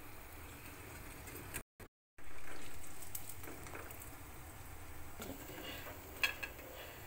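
Kaara vada (rice-and-lentil fritters) frying in hot oil in a steel kadai, the oil sizzling steadily. The sound drops out completely for about half a second around two seconds in, comes back louder and fades, and a sharp knock comes near the end.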